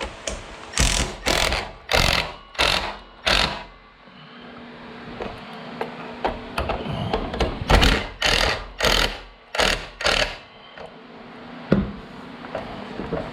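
Repeated scraping strokes of a hand tool working on a part, in two runs of about five strokes each, roughly two a second.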